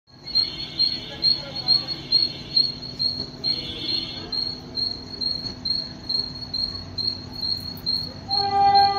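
An insect chirps steadily, a high pulse about twice a second, with a high whine coming and going in the first few seconds. About a second before the end, the horn of an approaching WDM3D diesel locomotive begins to sound.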